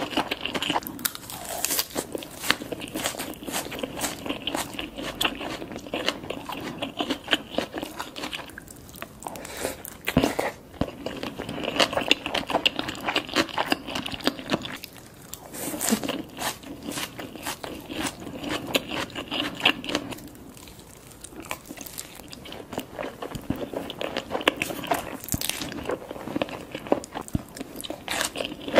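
Close-miked chewing of sushi rolls topped with crunchy tempura flakes: irregular crunching and crackling with wet mouth sounds, easing off briefly about two thirds of the way through.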